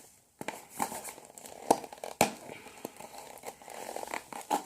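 Tight-fitting fidget cube box being worked open by hand: crinkling and scraping of the packaging, with a few sharp clicks, the loudest about two seconds in.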